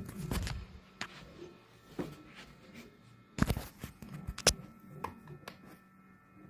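Handling noise: scattered knocks and clicks as things are moved and set down, the loudest about three and a half and four and a half seconds in, over a faint steady hum.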